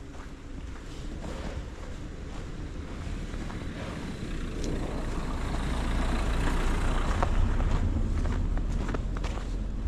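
A motor vehicle driving past on the street, its noise building to a peak about seven seconds in and then easing off a little.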